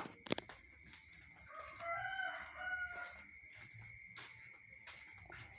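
Rooster crowing once, faint, a drawn-out call lasting about a second and a half and starting around a second and a half in. A sharp click comes just after the start.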